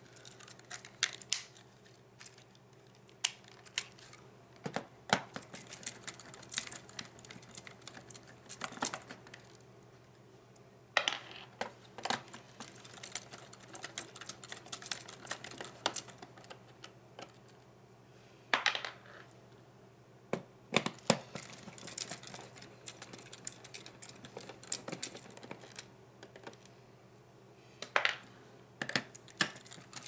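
Irregular small clicks and taps of a folding multi-tool screwdriver being handled and worked on screws in a laptop's plastic chassis, with a few sharper clacks.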